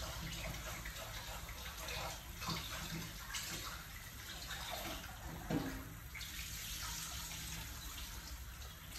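A pot of soup at a rolling boil, bubbling steadily with an occasional louder pop.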